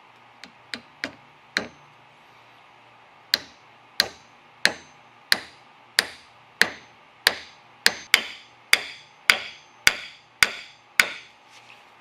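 Hammer striking a small metal tool into a dark hardwood block, one sharp hit at a time. Four lighter taps come first, then after a short pause a steady run of about fourteen strikes, roughly one and a half per second, with two faint taps near the end.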